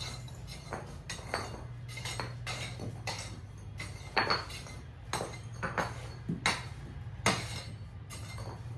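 A hand tool striking and prying up old interlocking pavers, about a dozen sharp blows with clinks as the loosened pavers knock together. A low steady hum runs underneath.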